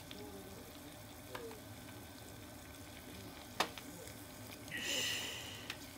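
Chicken karaage frying in oil in an aluminium mess tin, a steady low sizzle with a few sharp clicks, swelling to a louder hiss for about a second near the end as the pieces are lifted out.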